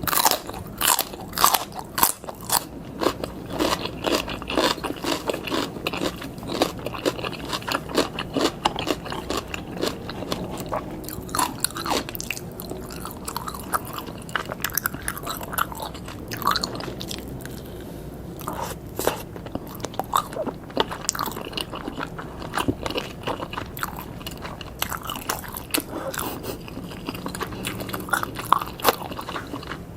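Close-up mouth sounds of a person biting and chewing grilled Thai pork skewers (moo ping) and red sausages: frequent sharp crunchy clicks, thickest in the first few seconds.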